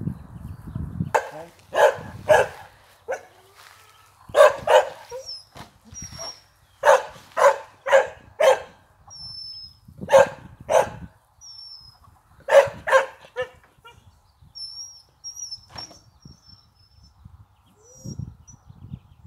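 Short, loud animal calls come in quick runs of two to four, repeated several times, over faint, high, falling peeping from week-old ducklings.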